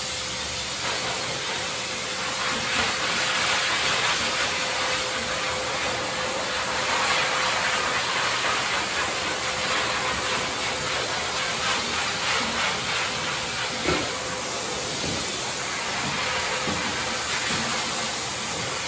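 Pet dryer blowing air through a long flexible hose onto a wet dog's coat: a steady rushing hiss over a faint steady motor tone, swelling and easing a little. A single sharp click about fourteen seconds in.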